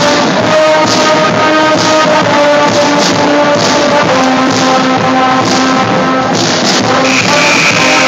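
College pep band playing loudly: brass holding and changing notes over drums and cymbals keeping a steady beat.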